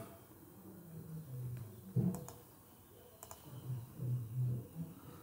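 A few computer mouse clicks: two about two seconds in and another close pair a little over a second later.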